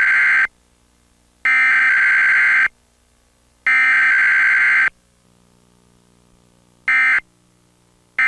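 Comcast cable Emergency Alert System data bursts for a Required Weekly Test: harsh, buzzing digital screeches. The last part of one header burst is followed by two more of about a second each, a second apart. After a pause come two short end-of-message bursts near the end.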